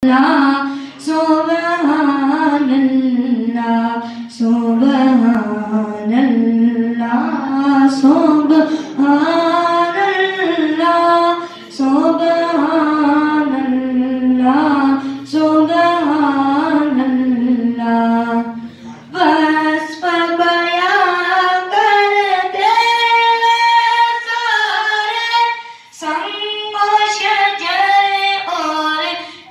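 A boy singing a devotional kalaam into a handheld microphone, unaccompanied, in long melodic phrases with brief pauses for breath every several seconds.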